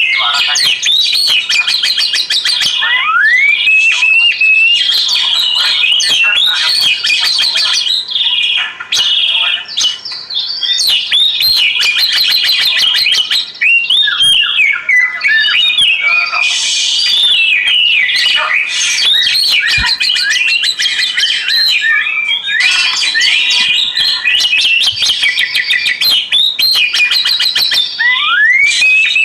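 Oriental magpie-robin (kacer) singing continuously. A loud, varied song of rising whistled notes and fast chattering phrases follows one after another without a break.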